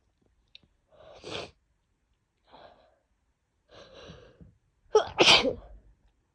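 A woman with a cold sneezing: a few short breathy inhales build up, then one loud, sharp, wet sneeze about five seconds in.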